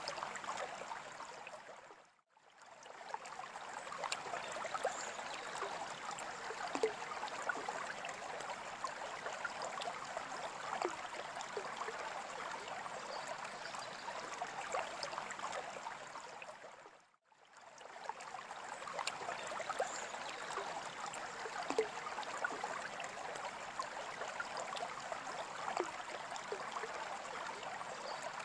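Running water trickling and bubbling steadily. It dips briefly to silence twice, about fifteen seconds apart, and swells back in each time.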